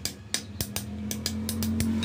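A quick, irregular series of sharp metallic clicks and taps as a spanner is handled against a clutch assembly, over a low steady hum that grows louder toward the end.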